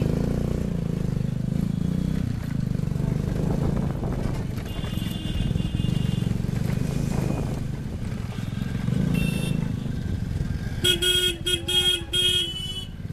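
Motorcycle engine running steadily while riding in city traffic, with horns tooting: short high toots about five and nine seconds in, and a loud run of quick horn blasts near the end.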